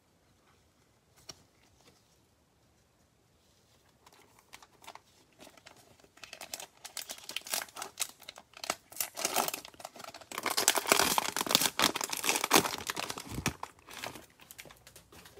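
Cellophane wrapper of a Donruss football cello pack crinkling and being torn open, building up from about four seconds in and loudest near the end before fading.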